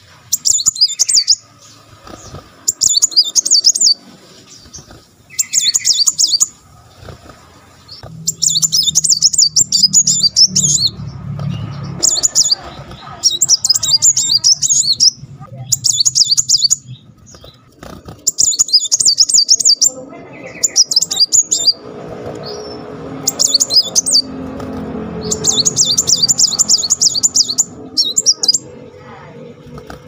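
Male brown-throated sunbird (kolibri muncang) singing its rapid rolling 'tembakan' phrases: high, fast trills of one to three seconds each, repeated about every two seconds, with a few longer runs.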